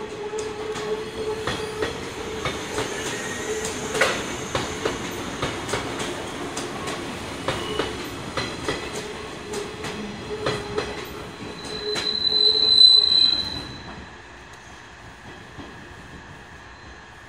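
JR 185 series electric train pulling out of the station: its wheels click over rail joints and points as the cars pass, over a steady hum. About twelve seconds in a loud, high wheel squeal rings out for a couple of seconds, then the sound drops away as the train draws off.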